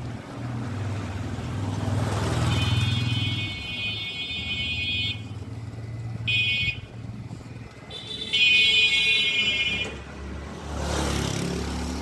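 Motor vehicles running past on a street, with a high-pitched vehicle horn held three times: a long blast, a short one and another long one. Near the end a vehicle passes close with a rising rush of engine and tyre noise.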